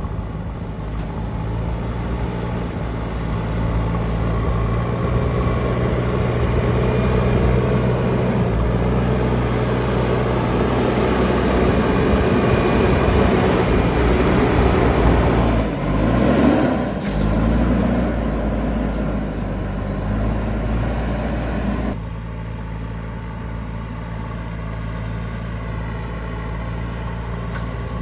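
An engine running steadily and growing louder. About sixteen seconds in, its pitch dips and climbs again, and at about twenty-two seconds it settles to a lower, steadier level.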